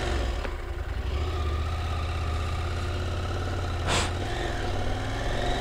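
Husqvarna Norden 901's parallel-twin engine running at low revs just after starting, as the bike pulls away from a stop on gravel. A brief sharp click about four seconds in.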